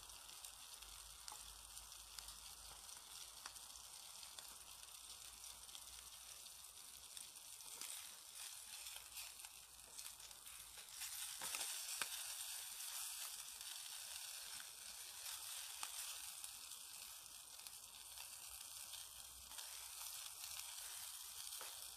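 Food sizzling faintly in a frying pan over a small wood-burning camp stove, with light ticks and crackles. The sizzle grows louder about halfway through, as the pan is stirred with a wooden spatula.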